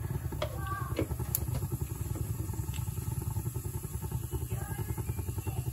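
Steady low rumble from the stove, with a few faint ticks and crackles as cumin seeds begin to heat in oil in a nonstick frying pan.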